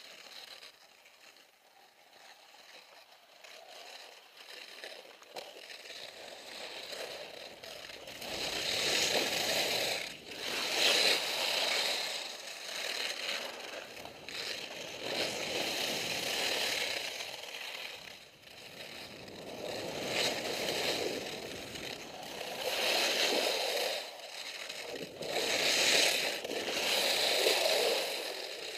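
Skis scraping and hissing over firm, wind-packed snow, swelling and fading about every two to three seconds with each turn, and growing louder over the first several seconds as the skier picks up speed.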